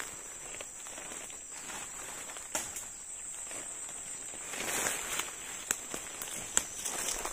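Steady high-pitched insect drone, with footsteps, rustling and a few sharp snaps of twigs and leaves in dense undergrowth; the rustling swells about two-thirds of the way in.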